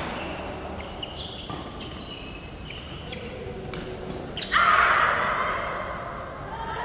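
Badminton rally in a large hall: sharp racket strikes on the shuttlecock a second or two apart, with short high squeaks from court shoes. About four and a half seconds in comes a loud, noisy burst that fades over a second or so.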